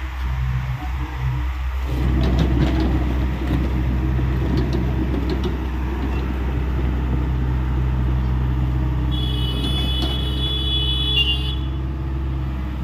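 Hyundai 85A excavator's diesel engine running steadily, working harder from about two seconds in, with a few light knocks. Near the end a high steady tone sounds for about two seconds.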